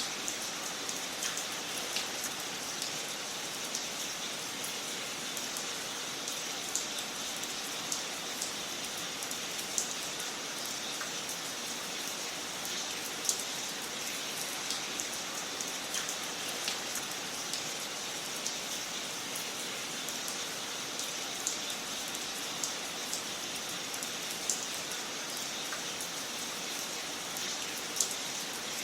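Wood fire crackling in a fireplace: a steady hiss with sharp pops scattered at irregular intervals, a few of them louder.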